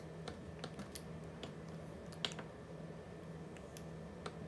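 About half a dozen light, scattered clicks and taps, the sharpest a little past halfway through, from a finger pressing the front-panel menu buttons of a Bell Home Hub 4000 modem. A faint low hum runs underneath.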